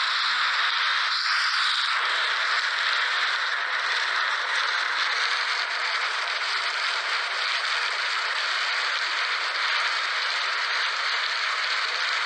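Recording of heavy rain falling, a steady, even hiss with no thunder rumble.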